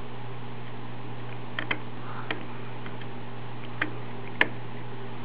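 A few small sharp clicks as an eSATA cable plug is worked into the eSATA port of a CipherChain ExpressCard adapter, the sharpest about four seconds in, over a steady low hum.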